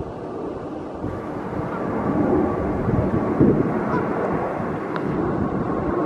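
Wind gusting on the microphone: an uneven low rumble that grows stronger about a second in.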